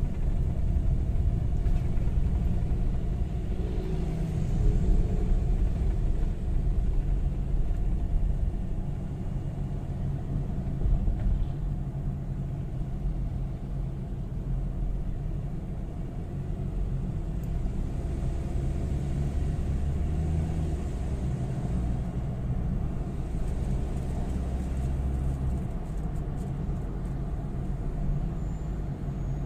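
Ford Ranger 2.2 L four-cylinder turbo-diesel heard from inside the cab while driving, a steady low engine and road rumble as the truck gathers speed gently from about 40 to 60 km/h.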